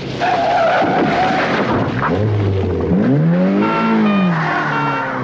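A car speeding by on the road: tyres squeal at first, then the engine note rises and falls as it passes.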